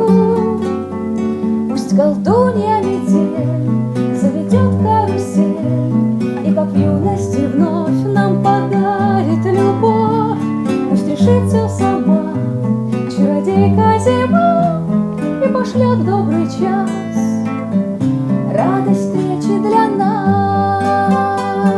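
Instrumental passage of a song: acoustic guitar played over a bass line that changes note about once a second.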